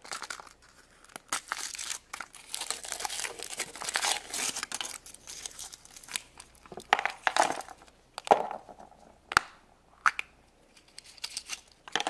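Foil wrapper of a chocolate surprise egg being peeled off and crinkled, then several short sharp clicks and cracks as the chocolate egg is broken and its plastic toy capsule snapped open.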